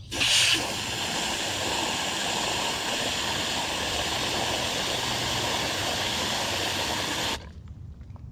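Garden hose spray nozzle running water into the fill tube of a self-watering planter's bottom reservoir: a louder hissing spurt as the trigger opens, a steady rush of water, then it cuts off sharply about seven seconds in.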